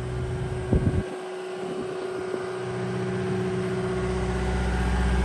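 Cat 259D compact track loader's diesel engine idling steadily, with a steady hum. There is a knock about a second in; the low rumble then drops away briefly and builds back up.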